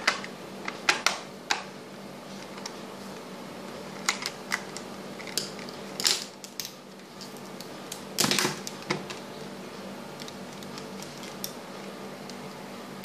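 Scattered plastic clicks and knocks from handling a digital multimeter and its test leads and setting it down on a wooden tabletop, the busiest cluster about eight seconds in.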